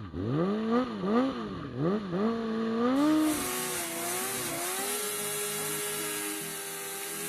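Honda CBR600F4i's inline-four engine revving in quick blips, about two a second. About three seconds in it is held steady at high revs under a loud hiss: a burnout, spinning the rear tire to warm it.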